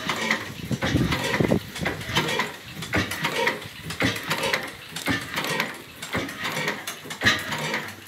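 1912 Hornsby stationary oil engine running with its flywheels turning, giving a repeated metallic clacking and knocking about once or twice a second.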